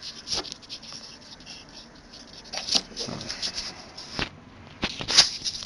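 Rustling and light clicking of objects being handled close to the microphone, with a few sharper clicks standing out, about three seconds and about five seconds in.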